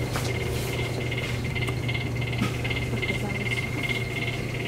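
Steady mechanical hum of shop refrigeration units, with a high chirping that pulses about three times a second.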